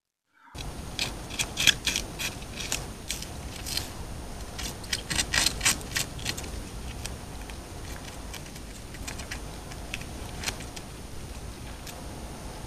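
Eurasian beaver gnawing a tree trunk with its incisors: a run of quick, crisp scrapes and clicks, thickest in the first half and thinning out after about six seconds, over the steady hiss of a trail camera's microphone.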